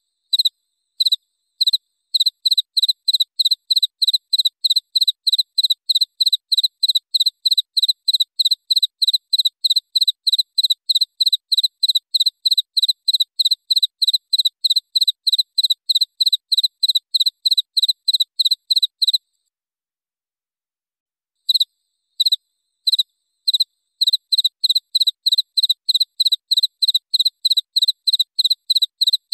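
Cricket chirping: a clean, high-pitched chirp repeated in a steady rhythm of about three a second. Roughly two-thirds in the chirping stops for about two seconds, then resumes with a few spaced chirps before settling back into the same rhythm.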